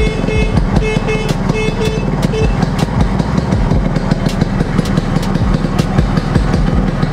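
Yamaha RX100's two-stroke single-cylinder engine idling steadily. Over the first two and a half seconds its electric horn gives a quick series of short beeps. The horn is working with no battery connected.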